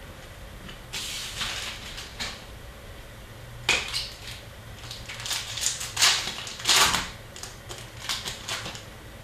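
Hands crinkling and tearing open a foil hockey card pack wrapper and sliding the cards out, in a series of short, irregular rustles that cluster in the second half.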